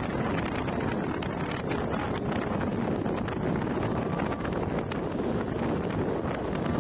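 Wind buffeting the microphone: a steady rushing noise with scattered faint ticks.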